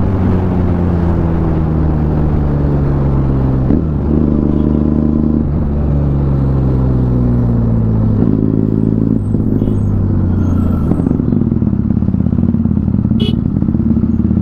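A Benelli 300 parallel-twin motorcycle engine running under a rider in city traffic. Its note slowly falls as the bike rolls off, rises again about 4, 8 and 9 seconds in as the throttle is picked up, then settles into a lower, rougher steady rumble near the end.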